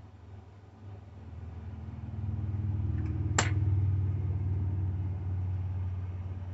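A low motor rumble swells over about two seconds and then holds steady, with one sharp click near the middle.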